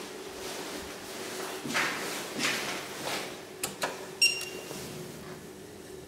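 Sounds at an elevator landing, over a steady hum: a few soft swishing sounds, then two light clicks. About four seconds in comes the loudest sound, a sharp click with a short, high ping, fitting the elevator's call button being pressed.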